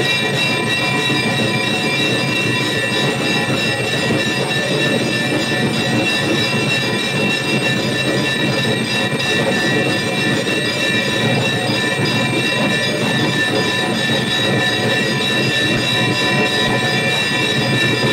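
Temple bells clanging without pause, a loud, dense metallic ringing with several held tones.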